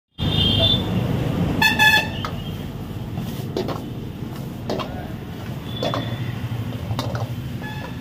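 A steel ladle clanks against a wok about once a second as the food is stirred, over a steady low rumble. A vehicle horn honks briefly just before two seconds in.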